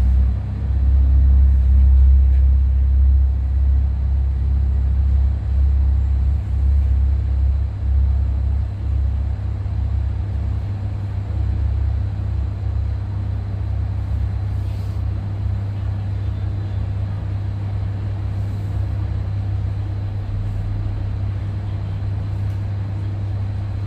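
Steady low rumble of jet airliner engines running on the airport apron, a little louder for the first eight seconds or so and then settling.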